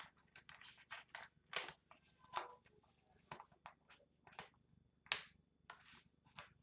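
Quiet, irregular crinkling, scratching and light clicking of a sticker sheet and small plastic Beyblade parts being handled while stickers are applied.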